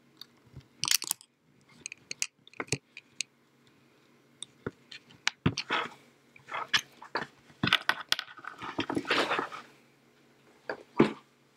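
Hands handling breadboards, jumper wires and alligator clips: irregular clicks, taps and rattles, with a longer stretch of rattling a little before the end and a faint steady hum underneath.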